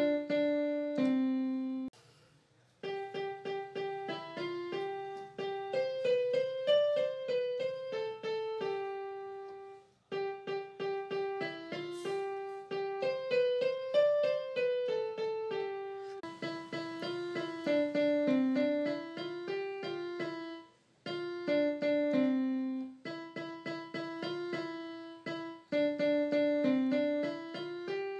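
Background piano music: a light melody of separate notes, with a few short breaks between phrases.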